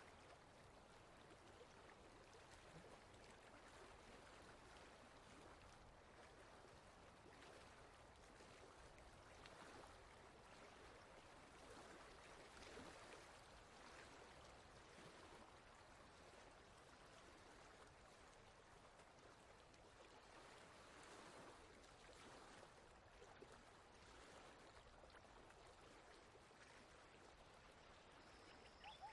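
Faint, steady rush of flowing water, like a stream, swelling and easing slightly.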